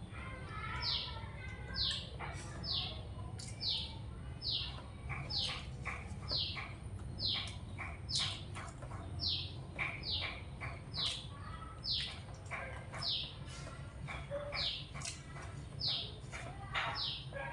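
A high chirp falling in pitch, repeated about once a second, over a steady low hum, with soft mouth clicks from chewing food.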